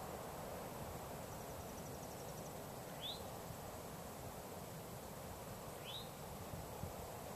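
Open-air ambience: a steady rushing background noise, with two short rising bird chirps about three seconds apart and a faint, rapid insect-like ticking about a second in.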